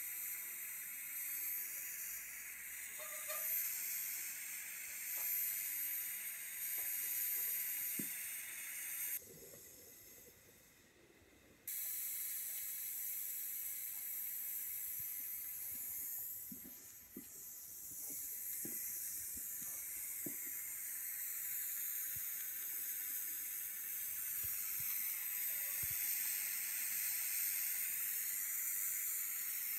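TIG welding arc from an EWM Tetrix 230 AC/DC inverter welder burning with a steady hiss. It drops out for about two seconds a third of the way in, then comes back.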